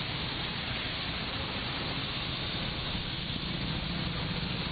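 Heavy rain and traffic on a wet road: a steady hiss of rain and tyres, with a low engine rumble that grows a little louder near the end.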